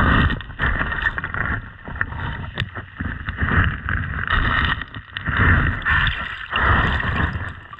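Muffled water sloshing and gurgling against the camera, swelling and fading about once a second.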